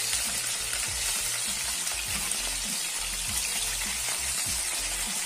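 Bone-in chicken thighs sizzling steadily in hot oil in a frying pan, with plastic spatulas stirring and turning them.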